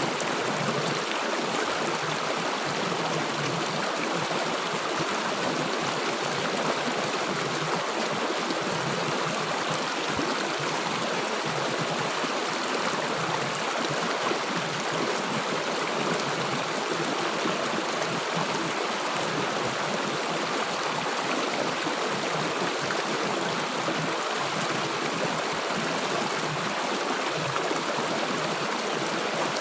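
River water flowing steadily, rushing and gurgling without pause.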